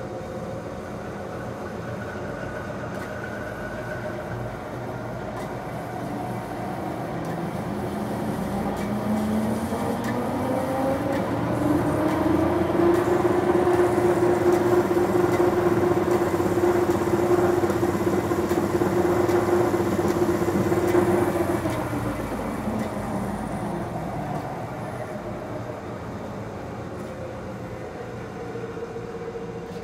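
DoAll vertical band saw running, its variable-speed pulley drive being sped up: the running tone climbs in pitch and gets louder over several seconds, holds at the higher speed for about ten seconds, then falls back as the saw is slowed down again.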